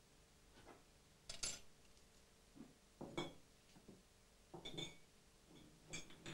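Crockery plates and cutlery clinking as they are handled: a series of light, separate clinks, the loudest about a second and a half in.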